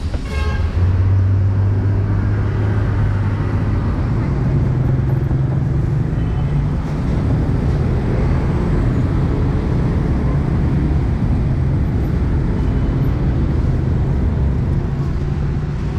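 Street traffic at an intersection: a nearby engine drones low and steady, its pitch moving up a little about four seconds in, over a constant wash of passing motorbikes and cars.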